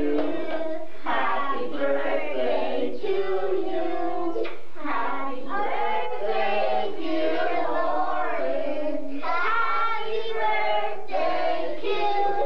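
A group of children singing together in held, wavering notes, phrase after phrase.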